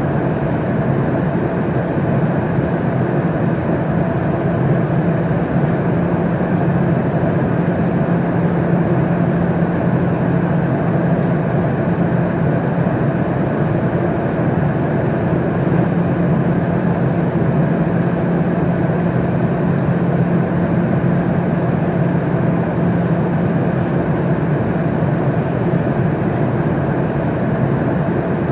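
Airliner cabin noise in flight: a steady rushing drone of air and engines with a low hum underneath, unchanging throughout.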